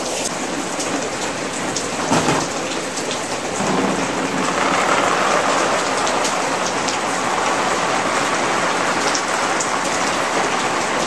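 Heavy rain pouring down on a concrete rooftop, a steady hiss of downpour that grows a little louder about four seconds in.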